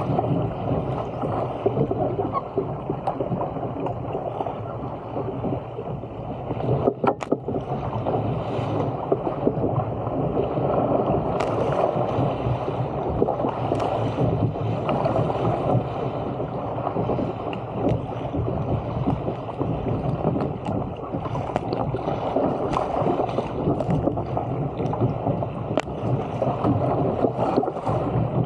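Water rushing and splashing along the hull of a Stealth 475 fishing surfski paddled at speed, a steady wash with a couple of sharp clicks about seven seconds in.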